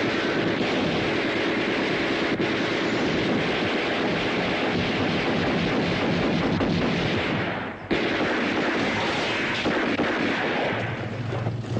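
Film soundtrack of a shootout: a dense, continuous din of gunfire and blasts. It drops out briefly about eight seconds in, then starts again.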